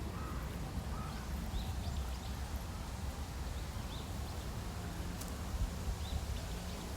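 Forest ambience: a steady low rumble with faint, short, high chirps of small birds scattered throughout, and a single click about five seconds in.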